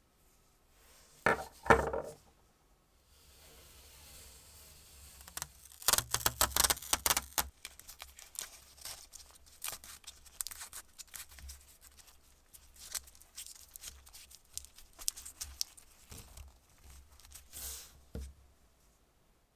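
Blue masking tape being pulled off the roll, torn and pressed around small metal model-locomotive wheels, crackling and crinkling in short runs. A brief loud clatter comes about a second in.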